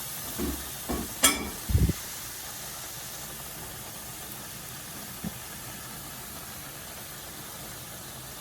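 Butternut squash and evaporated milk sizzling steadily in a pan as the remaining milk cooks off, with a few knocks and one sharp clack in the first two seconds and another light knock about five seconds in.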